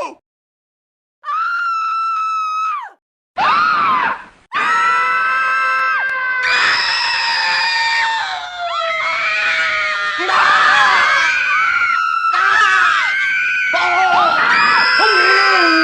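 Human screaming sound effects. A single high-pitched held scream starts about a second in, a second brief scream follows, then from about four and a half seconds several screams overlap without a break, their pitches wavering and sliding down.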